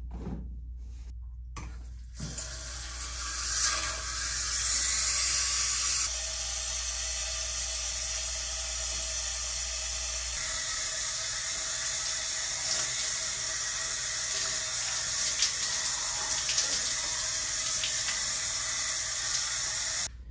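Shower running: water spraying from an overhead shower head and splashing down, a steady hiss that starts about two seconds in and cuts off suddenly near the end.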